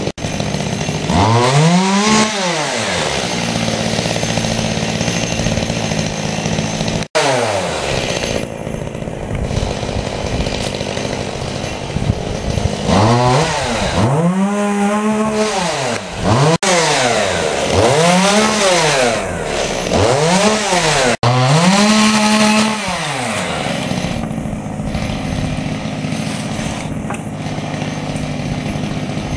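Two-stroke chainsaw running loud, its engine revved up and let back down several times, the pitch rising and falling with each throttle burst, with stretches of steady running in between.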